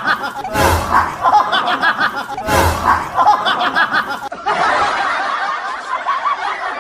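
People laughing and snickering, mixed with voices, with two short loud bursts about a second and about three seconds in.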